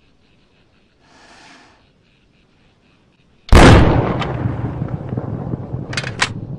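Faint, fast chirping in the background, then about three and a half seconds in a single sudden, very loud blast that dies away slowly in a long rumble. Two short sharp clicks come near the end.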